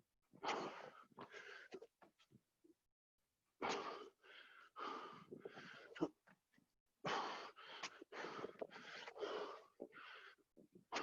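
A person panting hard from the exertion of doing burpees: quick, loud breaths in and out, with a brief pause about three seconds in. One sharp knock about six seconds in.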